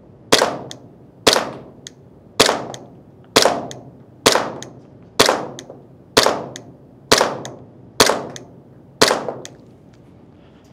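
SRC Glock 17 Gen5 MOS airsoft gas blowback pistol firing ten single shots at a steady pace of about one a second. Each is a sharp crack of the slide cycling, trailing off in room echo.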